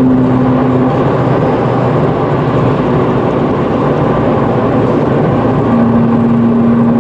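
Ferrari 458 driving at speed: a steady engine drone with loud road and wind noise, and a low hum that fades about a second in and returns near the end.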